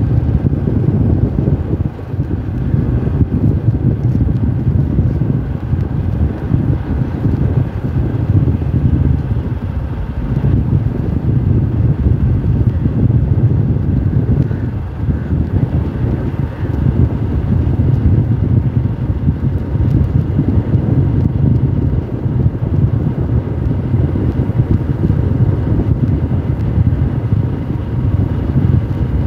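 Motorcycle on the move: wind buffeting the microphone as a loud, steady low rumble, with the bike's engine running underneath.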